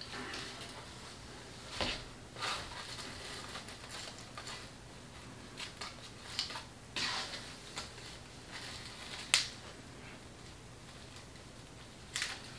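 Tulle rustling and light knocks as a tulle wreath is handled, laid down on a cutting mat and pressed on, with a sharp click about nine seconds in and a couple more near the end.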